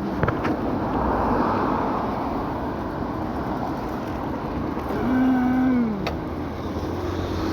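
Steady outdoor street noise of passing traffic. About five seconds in, a held tone sounds for about a second and drops in pitch as it ends.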